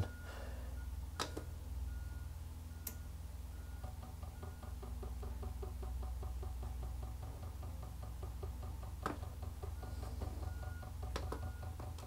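Diesel heater's fuel dosing pump ticking faintly and rapidly, about five ticks a second, as it primes a fresh fuel line. A few sharp clicks stand out over a low hum.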